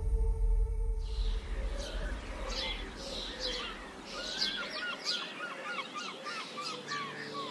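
Birds chirping and calling: many short, quick notes and little pitch glides in rapid succession. Under them a low ambient music drone fades away in the first few seconds.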